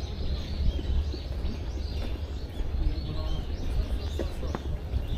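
Small birds chirping over and over in quick short notes, above a steady low rumble.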